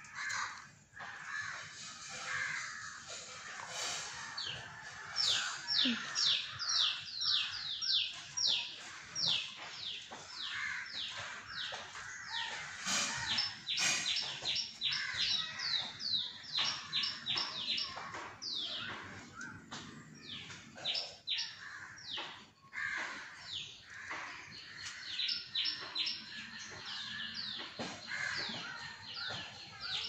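Munias chirping in quick series of short, high, downward-sliding notes, with crows cawing at times.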